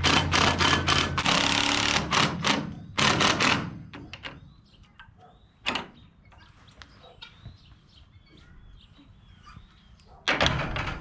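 Cordless drill driving screws into a steel gate latch on a wooden post, running in short bursts for about three and a half seconds, with one sharp knock about six seconds in. Near the end a metal tube gate swings into the latch with a loud clank and rattle.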